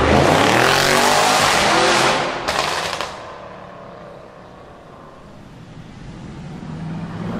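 A car accelerates hard past, its engine revving and its exhaust echoing in a road tunnel; the sound is loud for about three seconds and then drops away. Near the end a second car's engine rises as it approaches.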